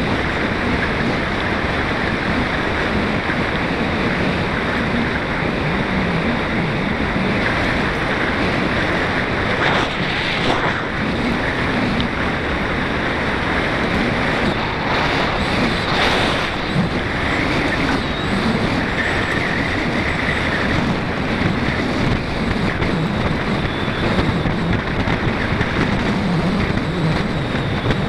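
Steady wind rush over the microphone of a moving mountain bike's camera, mixed with the rumble of bike tyres rolling over a gravel road. There are a couple of brief jolts about ten and sixteen seconds in.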